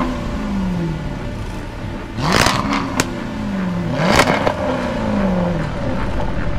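Jaguar F-Type R's 5.0-litre supercharged V8 being revved. The engine note is falling from a peak at first, then is blipped twice more, each rev climbing quickly and dying away more slowly, with crackles from the exhaust near the peaks and one sharp crack about three seconds in.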